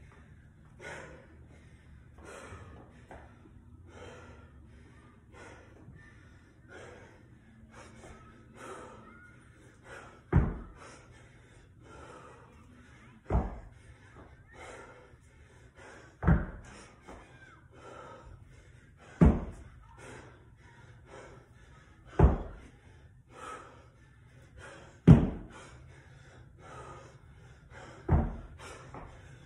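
Heavy panting breaths, about one a second. From about ten seconds in, a 50-pound hex dumbbell thuds onto a rubber floor mat seven times, about every three seconds, once at the bottom of each snatch rep.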